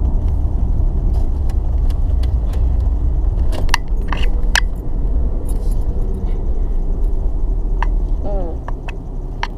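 Car cabin noise while driving: a steady low rumble of engine and road, with the key ring hanging from the ignition jingling in short clicks now and then.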